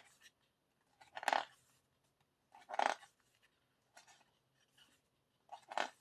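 Paper and card album inclusions being handled: four short rustles about a second and a half apart.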